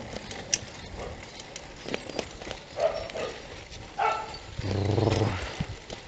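Bicycle rattling and clicking as it rides over a rough dirt road, with short irregular knocks. About five seconds in comes the loudest sound, a drawn-out, wavering call of about a second.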